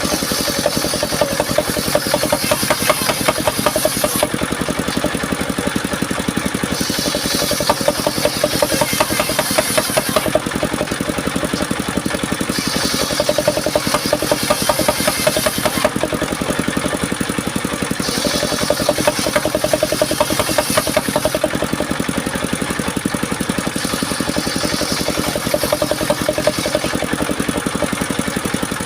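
Engine of a mobile sawmill's home-built circular saw rig running steadily. A higher hiss comes and goes about every six seconds.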